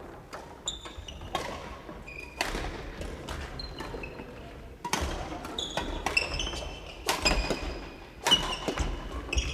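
Badminton rally: sharp racket strikes on the shuttlecock and thuds of footwork, mixed with short high squeaks of court shoes on the wooden floor, echoing in a large hall.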